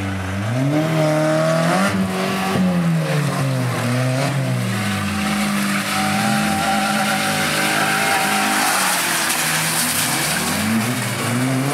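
Several banger racing cars' engines revving hard, their pitch rising and falling over and over as the cars shove against one another.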